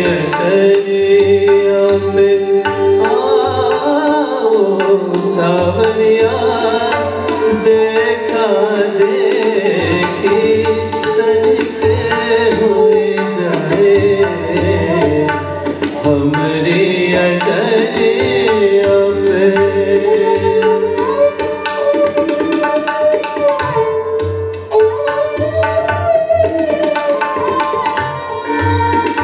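Live Hindustani light-classical music: tabla playing a steady rhythm under a melody that slides and bends in pitch.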